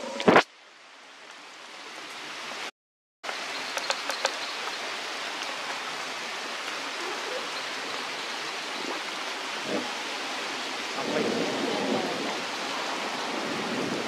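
Steady hissing outdoor background noise, even and without a clear pitch. A sharp knock comes just after the start, and the sound cuts out completely for about half a second some three seconds in.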